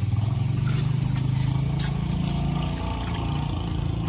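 Low, steady drone of a motor vehicle engine running close by, its pitch rising a little and then easing off after about three seconds, with a few faint knife cuts into firm green fruit.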